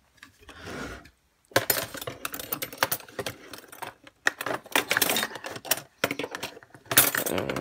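Silverware clattering and clicking at a kitchen sink as it is washed, in quick irregular runs starting about a second and a half in.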